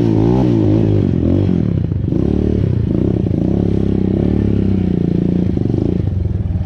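Motorcycle engine running while riding, the revs rising and falling over the first couple of seconds and then holding steadier.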